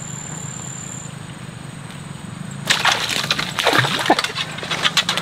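A fish hooked on a tegek line thrashing at the surface of shallow swamp water: a sudden burst of rapid splashing starts about two and a half seconds in and keeps going. Before it, a steady high insect drone stops about a second in.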